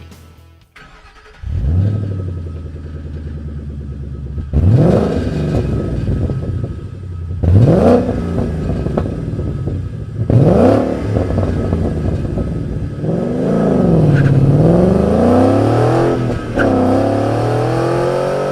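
Ford Mustang GT 5.0 V8 with a Borla Touring exhaust starting up about a second and a half in and settling into a steady idle. It is then revved in three quick blips, and near the end the engine speed drops and climbs again in a longer rev.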